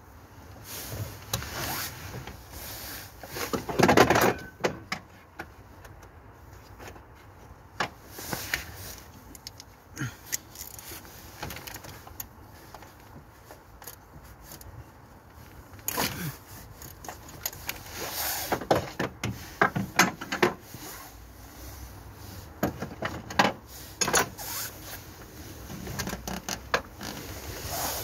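Irregular metallic clinks, knocks and rustling from hands and tools working down inside a car's engine bay during a starter motor replacement, with the loudest knock about four seconds in and a busier run of clinks in the second half.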